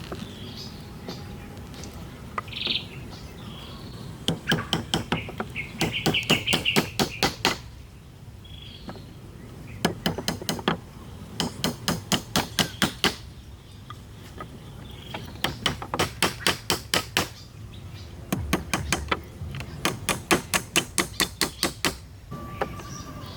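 Runs of rapid, sharp strikes from a hand tool on wood, about six a second, coming in four bursts of two to four seconds each. Small birds chirp in the pauses between the bursts.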